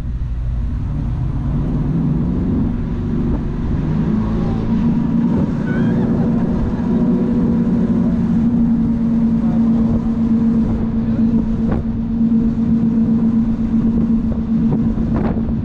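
Jet boat's twin 496-cubic-inch V8 engines revving up, their pitch climbing over the first four seconds as the boat picks up speed, then running steady at high speed.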